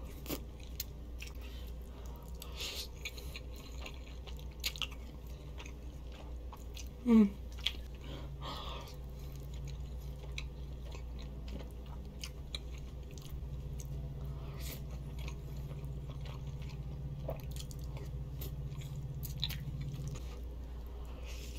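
Close-miked chewing of spaghetti in tomato sauce: wet mouth sounds with many small clicks and smacks, and one brief louder sound with a sliding pitch about seven seconds in.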